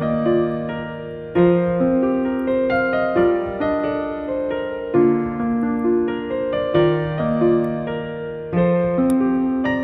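Background music: a gentle electric piano melody with sustained notes, repeating a short phrase.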